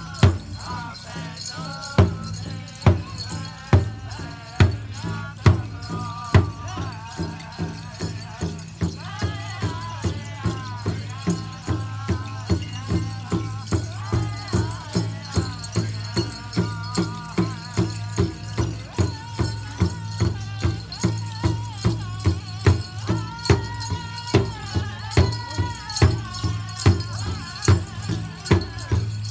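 A drum struck in a steady beat under a singing voice, like a ceremonial chant. The beat starts at about one stroke a second and quickens to about two a second after several seconds.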